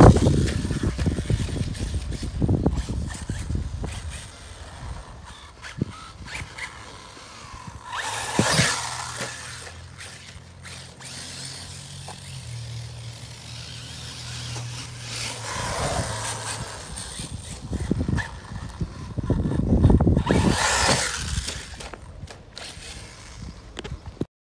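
Arrma Typhon 6S 1/8-scale RC buggy running on a 4S LiPo across grass, its brushless electric motor whining as it speeds up and backs off. It grows loud in several swells: at the start, about eight seconds in, and again in the last third.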